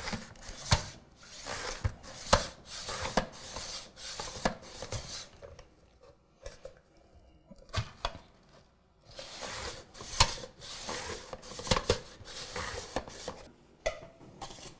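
Onion being sliced on a De Buyer Swing mandoline: the food holder is pushed back and forth over the blade in repeated scraping strokes with sharp knocks, about one a second, pausing for a few seconds midway.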